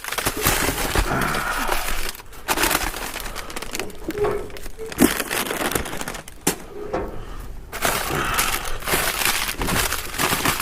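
Rummaging through packaged food in a dumpster: plastic wrappers and bags crinkling and rustling in bursts, with a few sharp knocks of items being handled, the sharpest about five seconds in.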